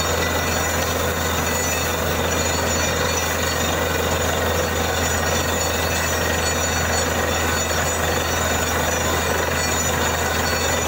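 Drilling rig running steadily: a loud, continuous mechanical din over a constant low engine hum.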